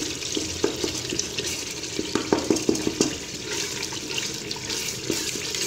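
Onion-tomato masala sizzling in oil in an aluminium pressure cooker as a wooden spoon stirs it, with irregular scrapes and taps of the spoon against the pot. The masala is nearly fried through, its oil separating.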